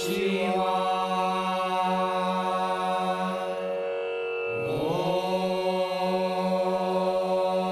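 Background music of a chanted mantra sung in long held notes over a steady drone, with the voice sliding up into a new held note about five seconds in.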